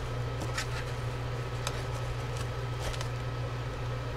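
A steady low hum with a faint high whine over it, and a few faint light ticks from soldering work on the wires.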